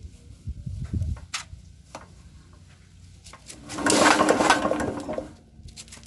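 Yanmar air-cooled diesel being turned over by hand with its injector out on the fuel line: a few clicks, then about four seconds in a loud rushing burst lasting about a second and a half as the injector nozzle sprays fuel, a sign that the fuel pump and injector are delivering.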